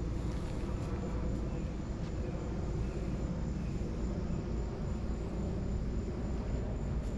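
Steady low background rumble of outdoor ambience, with a faint steady high-pitched tone above it.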